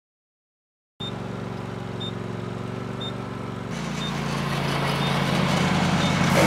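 Ride-on lawn mower engine running steadily, starting about a second in; its note changes about three seconds in and it grows louder toward the end.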